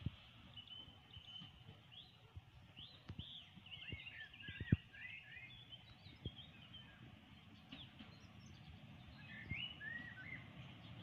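Small birds chirping and singing, busiest from about three to five seconds in and again near the end, over a faint low outdoor rumble, with a few soft thumps, the loudest about halfway through.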